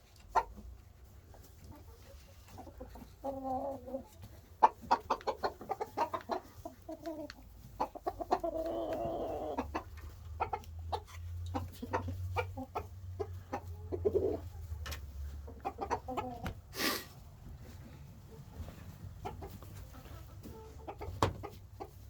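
Domestic chickens clucking in bouts, with many short clicks and taps among them. A single brief, sharp hissy burst comes about two thirds of the way through.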